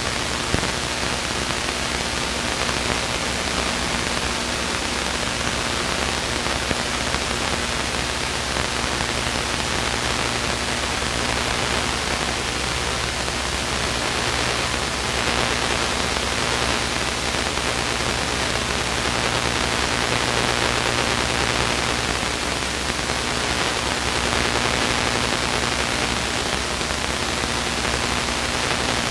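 Steady cabin noise of a Luscombe light aircraft in flight: an even engine drone under a constant hiss.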